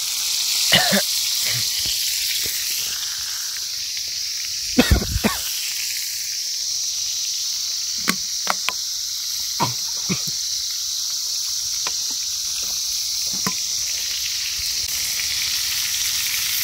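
Chicken pieces frying in hot oil in a pan: a steady loud sizzle with scattered pops and clicks, the loudest cluster about five seconds in.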